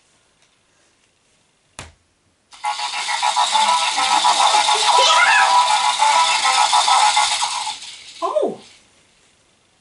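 Battery-powered light-up ball toy switched on with a click, then playing a loud buzzing, musical electronic sound for about five seconds before it stops. A short falling vocal exclamation follows near the end.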